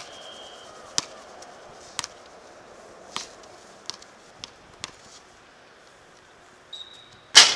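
Basketball bouncing on a hard court, about once a second at first, then a few quicker, lighter bounces, with two short high squeaks and a loud bang near the end.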